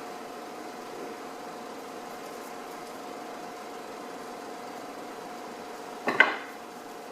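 Steady background hum, with a brief hard clatter about six seconds in as something solid is knocked or set down.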